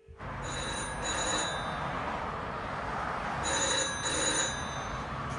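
Telephone bell ringing in the British double-ring pattern: two 'ring-ring' pairs about three seconds apart, over a steady low hum.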